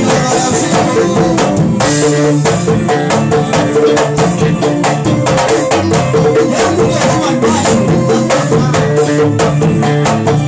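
Instrumental band music with no singing: a fast, dense percussion groove of many quick drum strokes over a repeating bass line and other pitched instruments.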